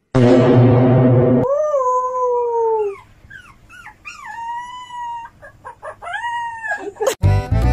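A small white puppy howling: one long falling howl, then several shorter howls that rise and fall in pitch. A loud, dense sound fills the first second and a half, and music comes in near the end.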